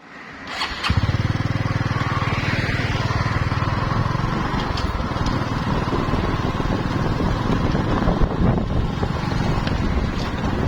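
A small engine running steadily with a fast, even low pulsing, coming in about a second in.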